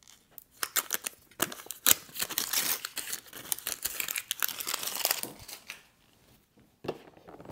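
Protective wrapping crinkling and tearing as it is peeled off a small Apple 30 W USB-C power adapter: a dense run of crackles for about five seconds, then a pause and a couple of short handling clicks near the end.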